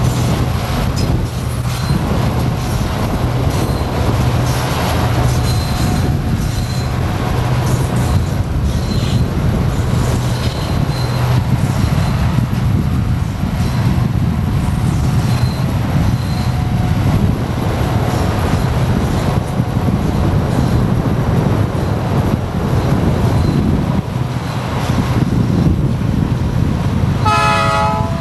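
Freight train running at speed with a steady heavy rumble and occasional faint high wheel squeals, then a short train horn blast near the end.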